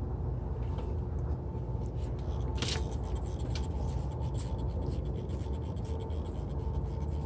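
Steady low hum with light scratching and clicking from hands working on a windshield gasket, and one short hiss nearly three seconds in.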